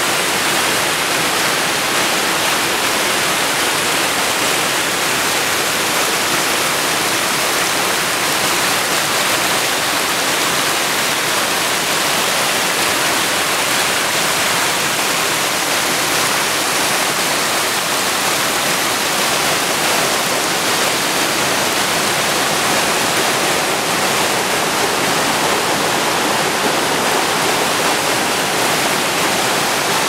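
Small waterfall and creek cascading over boulders: a loud, steady rush of water.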